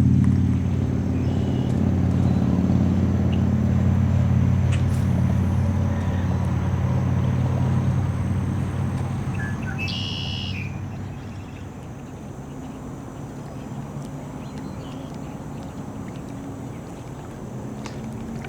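A motorboat's engine running steadily, loud at first and fading away over about twelve seconds as the boat moves off.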